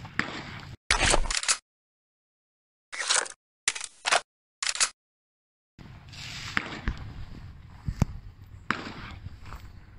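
Four short, loud video-game sound effects with dead silence between them, from a first-person M4 carbine. Then outdoor range ambience returns, with a few gunshots from a Colt Commando 5.56 mm short-barrelled carbine about a second apart.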